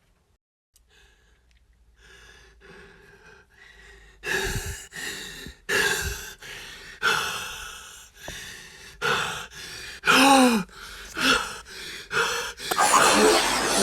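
A person gasping and breathing hard in short, uneven breaths, getting louder from about four seconds in, with a couple of brief whimpers that fall in pitch near the end.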